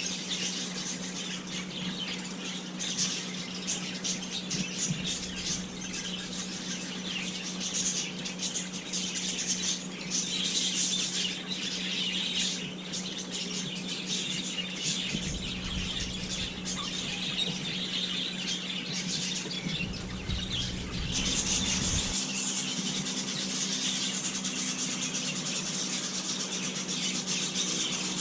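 Small birds chirping and chattering continuously, over a steady low hum, with two short low rumbles in the middle.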